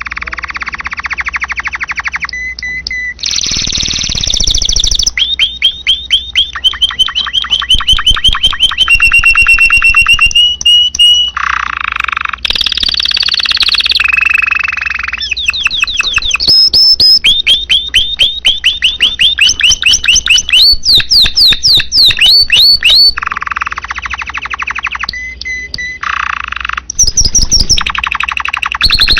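Domestic canary singing a loud, unbroken song: fast trills and runs of rapidly repeated notes, switching to a new phrase every one to three seconds.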